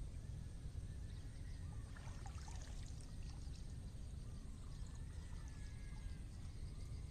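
Pond water trickling and splashing off a cast net as it is hauled up out of the water, with small scattered splashes over a steady low rumble.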